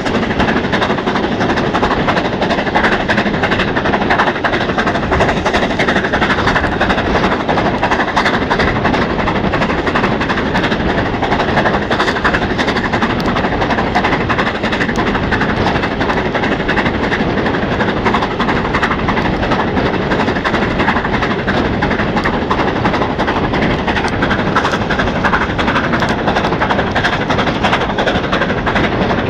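Steam-hauled train running at speed, heard at an open carriage window as a loud steady rush of wind and wheel noise. Through it runs a dense, rapid clicking: char thrown out of the smokebox of 70013, a BR Standard 'Britannia' 4-6-2, striking the camera.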